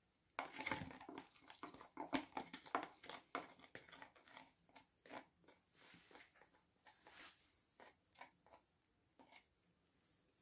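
Wooden stick scraping and tapping inside a plastic tub as clear epoxy resin is scraped out of it: a run of irregular scratchy clicks, densest in the first few seconds and sparser after.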